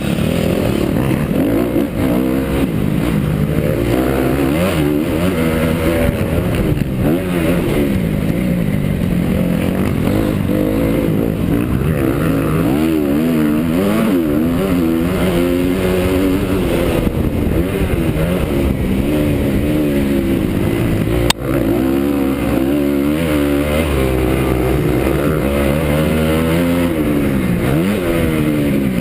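Honda CRF250 four-stroke motocross bike engine revving hard while being raced, its pitch climbing and dropping again and again through throttle and gear changes. A single sharp knock sounds about three-quarters of the way through.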